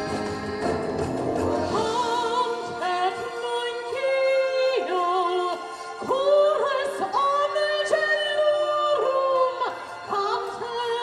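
Christmas show music: a voice holds long, sliding notes with vibrato over orchestral accompaniment, with no words made out.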